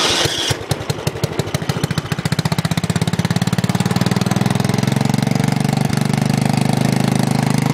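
Tecumseh 11 hp engine of a Craftsman riding tractor, freshly started with its carburetor just refitted. Its firing beats pick up speed over the first few seconds, then it runs steadily with the throttle all the way up.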